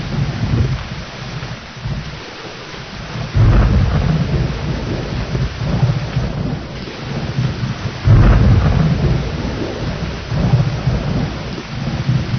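Steady rain with rolling thunder. Two sudden loud thunderclaps, one about three and a half seconds in and one about eight seconds in, each rumbling away over a few seconds.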